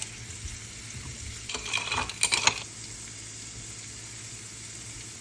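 Food sizzling in a frying pan, with a utensil stirring and clattering against the pan for about a second near the middle.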